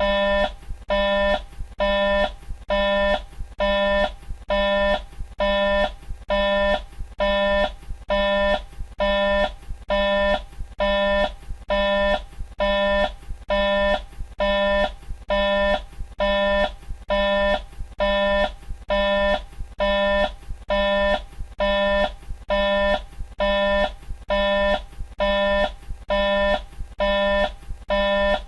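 Mercedes-Benz Travego coach's turn-signal indicator sounding in the cabin: a steady electronic chime repeating about once a second, over a low steady hum.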